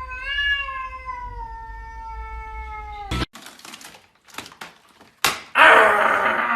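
A cat's long, drawn-out meow, slowly falling in pitch and cut off abruptly about three seconds in. Then a few clicks and knocks, and near the end a loud, harsh cry begins.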